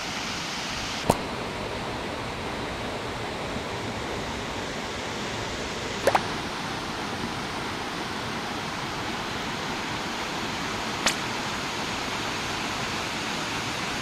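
Steady rushing of the Kasagi Fudo male fall, a 40 m tiered waterfall, an even hiss with no change. Three short clicks about five seconds apart cut through it.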